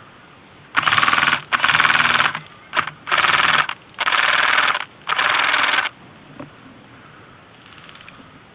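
Airsoft electric gun's gearbox cycling in six bursts of about half a second to a second each, one of them very short, a rapid buzzing rattle. The gun is eating its piston: its gears are stripping the piston's teeth, so the gearbox whirs on without firing properly.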